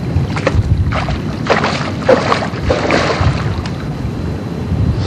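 Water splashing irregularly at the surface as a hooked carp is brought to the landing net, with the splashes strongest in the first three and a half seconds. Wind rumbles steadily on the microphone underneath.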